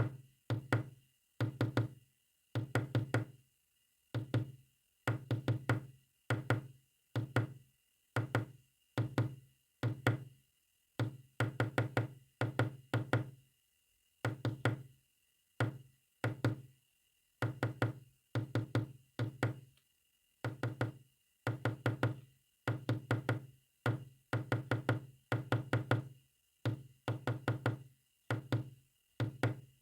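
Morse code sent as short, low-pitched buzzing beeps. The dots and dashes are bunched into characters, with about one character a second and clean silent gaps between them.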